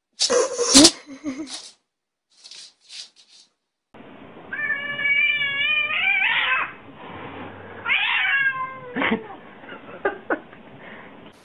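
Cats reacting to their reflections: a few short hisses, then a long, drawn-out yowl that rises at the end, a second shorter, falling yowl, and two sharp knocks near the end.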